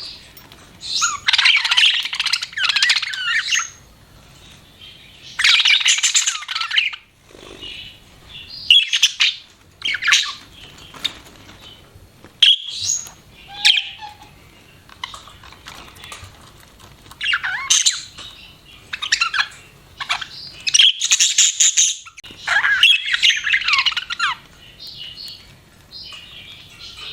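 Budgerigars chirping and chattering in bouts of rapid warbling calls, a second or two each, with short pauses and single sharp chirps between them.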